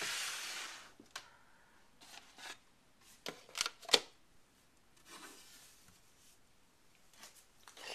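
Plastic snake tub scraping as it slides out of a rack, then scattered clicks and knocks of plastic and hands handling a ball python, with a sharp knock about four seconds in.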